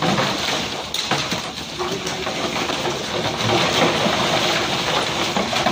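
Dozens of large fish sliding off a truck bed and dropping onto a heap of fish on wet pavement, a continuous run of wet slaps and thuds. A steady engine noise runs underneath.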